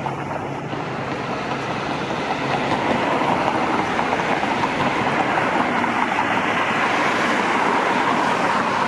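Steady rushing vehicle noise that grows gradually louder over the first few seconds, then holds.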